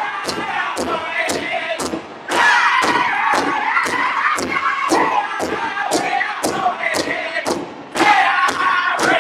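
Northern-style powwow drum group: several men singing high, descending chant phrases over steady unison strokes on one large drum, about three beats a second. The singing dips briefly about two seconds in and again near the end, and a high voice comes back in each time.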